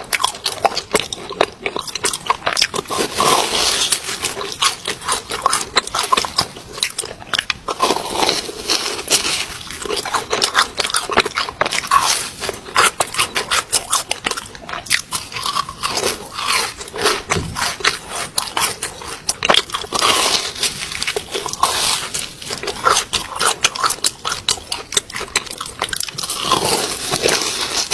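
Crunching, biting and chewing of chocolate-stuffed balls, a dense run of sharp irregular crunches and mouth clicks.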